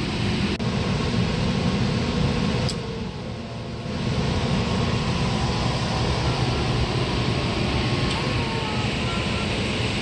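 Steady machine and air noise from a running Liebert humidifier unit, mostly a low rumble with a hiss over it; the hiss fades briefly about three seconds in.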